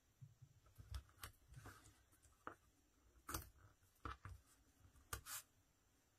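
Small craft scissors snipping double-sided tape: several faint, separate snips about a second apart, with light rustling as the tape is handled.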